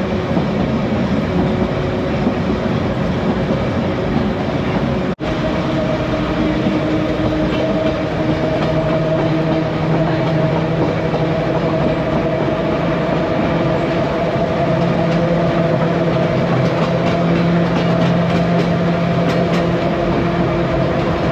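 Manx Electric Railway electric tramcar running along the line, a steady rumble with a droning hum of several tones. The sound cuts out for an instant about five seconds in.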